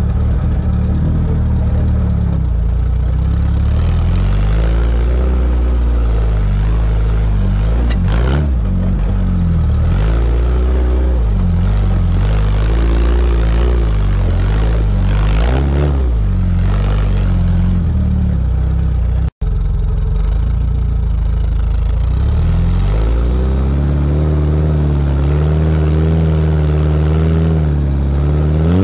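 Sporting trials car's engine running under load, its pitch rising and falling repeatedly as the throttle is worked, heard from a camera fixed low on the car's side. The sound cuts out for an instant about two-thirds of the way through.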